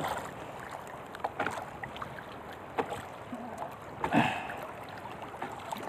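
Choppy sea water lapping against the hull of a small outrigger boat, with wind, a few faint knocks and one short, louder sound about four seconds in.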